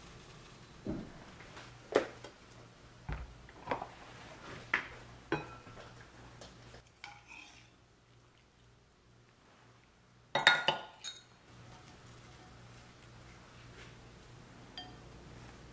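Kitchen utensils knocking and clinking against a ceramic bowl and a pot: a run of separate light knocks over the first five seconds, then a louder quick cluster of clinks about ten and a half seconds in.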